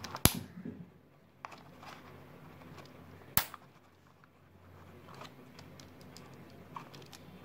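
Two sharp plastic clicks from a Schneider Easy9 two-pole miniature circuit breaker being handled, about three seconds apart, with faint handling rustle between.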